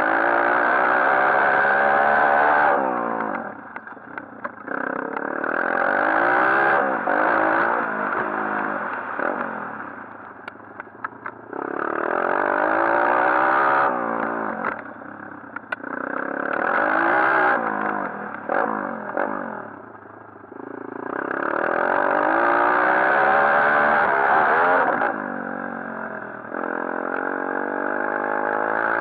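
140cc pit bike's single-cylinder four-stroke engine revving up and down again and again as the throttle is opened and shut, the pitch climbing through each burst. In the off-throttle dips the engine drops back and some clattering rattles show.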